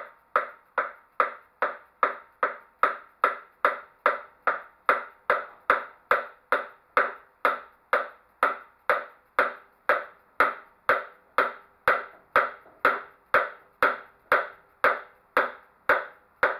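Steady hammer blows on metal, about two a second, each strike ringing briefly. The blows go on evenly and stop at the very end.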